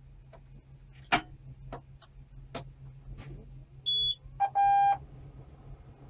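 Switch clicks and instrument-panel warning beeps from a John Deere 6150R tractor as the ignition is switched on before starting. Several sharp clicks, then a short high beep about four seconds in, followed by a lower short beep and a longer buzzer tone, all over a steady low hum.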